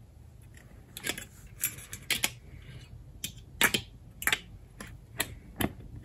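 Parts of a Marshal 889 motorcycle headlight, the chrome rim and the lens-and-reflector unit, clicking and tapping as they are pressed and fitted together by hand. There are about nine sharp, irregular clicks.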